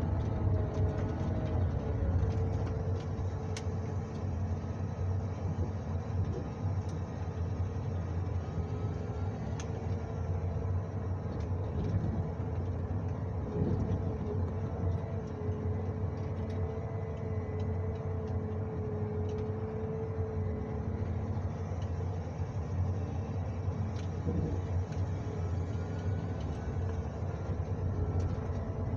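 John Deere 1910G forwarder heard from inside the cab: the diesel engine runs steadily with a low hum while the crane works the grapple, with a wavering whine and a few short knocks.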